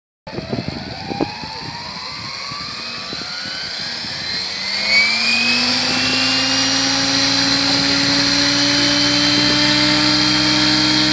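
GAUI X7 electric RC helicopter spooling up on the ground: the motor whine rises in pitch over about the first five seconds, then settles into a steady hum of the main rotor at head speed. A few short knocks sound in the first second or so.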